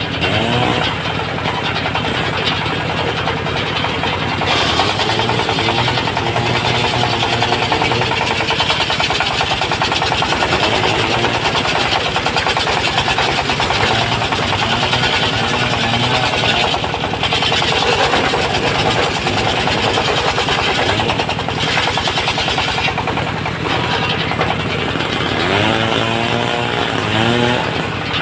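Engine-driven circular sawmill running, its disc blade cutting teak timber, with a fast, steady engine pulse under the saw noise.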